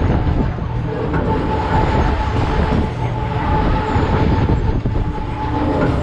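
Breakdance fairground ride running at speed, heard from one of its cars: a loud, continuous low rumble and rattle from the spinning cars and turntable, with a steady high tone over it.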